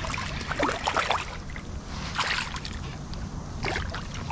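A hooked fish thrashing at the water's surface as it is brought in to the side of a kayak: three short bursts of splashing, about a second and a half apart, over a steady low rumble.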